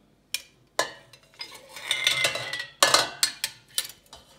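Metal tongs clinking and knocking against a glass jar and the stainless steel pot as the jar is set into the water, several sharp clinks with a longer ringing scrape in the middle.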